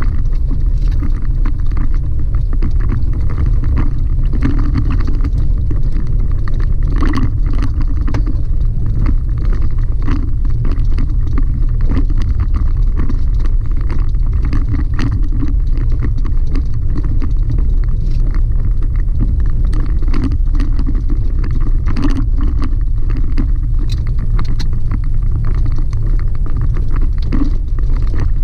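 Chevy Colorado ZR2 pickup driving over a rough gravel dirt track: a loud, steady low rumble with frequent small knocks and rattles from the bumps and stones.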